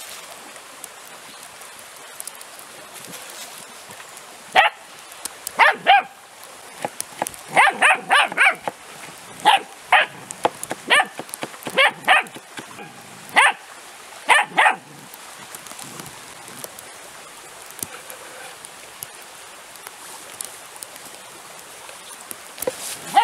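Puppy barking in play: a run of about fifteen short, high-pitched yaps, some in quick pairs and triplets, starting about five seconds in and stopping about fifteen seconds in.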